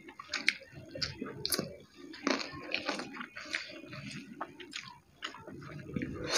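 Close-up chewing and wet mouth smacks of people eating rice and curry with their hands, as a run of short irregular clicks and squelches, with a brief pause about five seconds in.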